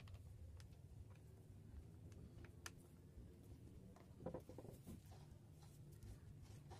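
Faint clicks and light knocks from handling an electric hand planer: a screwdriver working the screws of its aluminium base plate, then the tool and planer being moved on a wooden workbench, with a short run of knocks about four seconds in.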